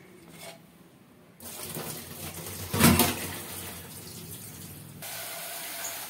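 Cloudy rice-wash water poured from a steel vessel into a stainless-steel sink, with a louder splash about halfway through. About five seconds in, the sound turns to a brighter hiss as the tap runs water into the vessel for the next rinse.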